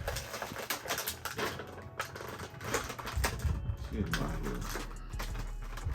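Quick, irregular clicks and crinkles of plastic action-figure packaging being handled and worked open.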